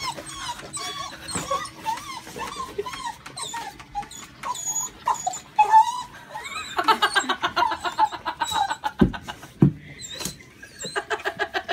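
Blue heeler (Australian cattle dog) whining and crying in a string of short, wavering, high-pitched calls, with runs of rapid yips: excited greeting noises. A couple of dull bumps come near the end.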